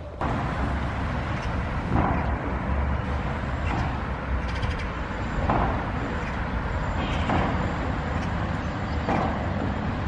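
Steady outdoor rumble and hiss, with soft scuffing sounds recurring about every two seconds.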